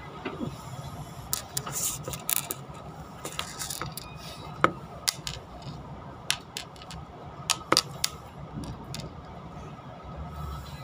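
Inside a Chu-Kuang express passenger carriage as the train moves slowly out of the station: a steady low rumble with irregular clicks, knocks and rattles of the carriage.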